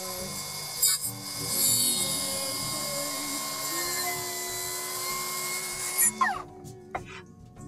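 Milwaukee track saw cutting along a wooden board, its motor and blade running steadily under load; about six seconds in it is switched off and winds down with a falling whine, followed by a few light knocks.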